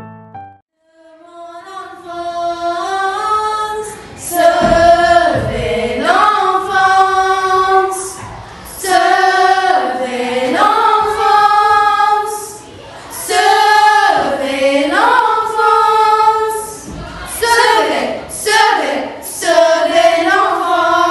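A small group of schoolgirls singing together in phrases of about two seconds, starting after a brief pause. A piano note dies away at the very start.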